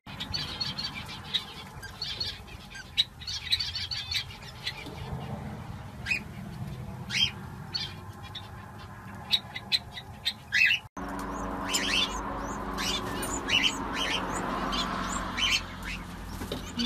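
Small birds chirping in many quick, short, high tweets. After an abrupt cut about eleven seconds in, the tweets go on over a steady hiss while a canary feeds its nestlings at the nest.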